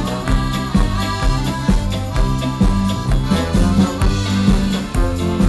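Live band playing upbeat music led by an accordion, with electric guitar and a steady beat.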